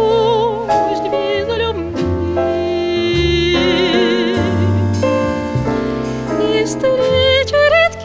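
Woman singing a slow, jazz-arranged Soviet song with a wide vibrato, accompanied by piano and double bass.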